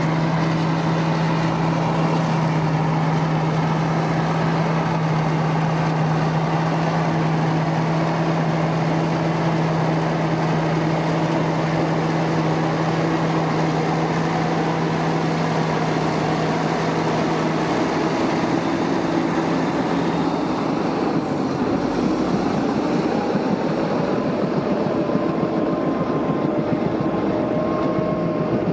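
Caterpillar D8K crawler tractor's diesel engine running steadily under load as it tows a 463G hydraulic scraper stripping topsoil. About twenty seconds in the engine note changes as the machine passes close by.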